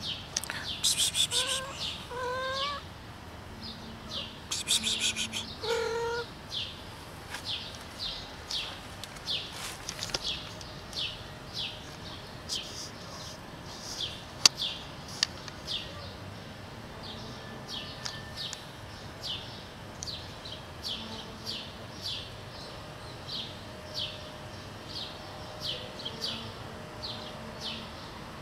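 A small bird chirping over and over, short high chirps about twice a second, with louder bursts of busier calling near the start.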